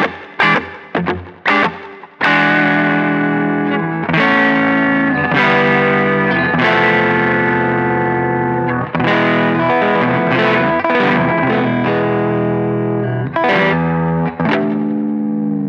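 Fender American Standard Stratocaster electric guitar played with distortion: a few short, choppy chord stabs, then long ringing chords that change every second or two.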